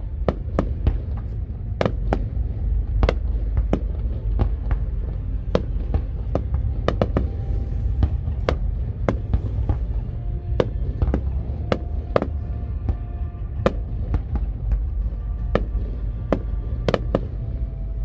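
Fireworks display: a fast, irregular barrage of shells bursting, several bangs a second over a continuous low rumble. Music plays faintly underneath in the second half.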